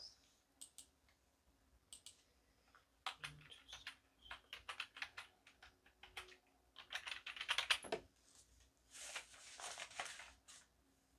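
Typing on a computer keyboard: a few scattered keystrokes, then a quick run of key clicks from about three to eight seconds in. A brief noise of about a second and a half follows near the end.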